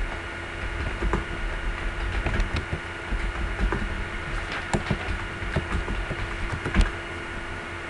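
Scattered clicks of a computer mouse and keyboard over a steady electrical hum.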